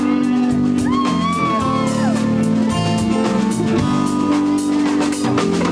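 Live rock band playing loud, with electric guitar chords over a drum kit. About a second in, a high note bends up, holds, and falls away.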